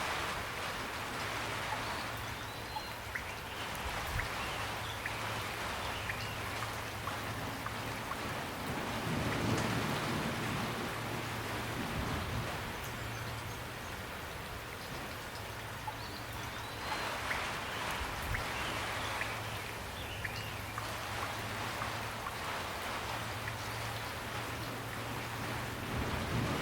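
Steady rain falling, with individual drops ticking and pattering now and then over the even hiss. A low hum rises and falls in the background.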